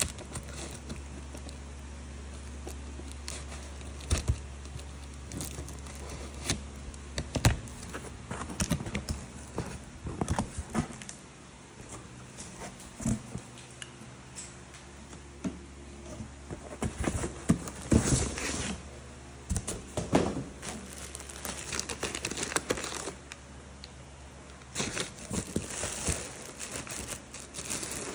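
A cardboard box being cut and torn open and unpacked. Packing tape and cardboard rip, plastic wrapping crinkles, and there are scattered sharp knocks and scrapes as the flaps and contents are handled, busiest around the middle and near the end.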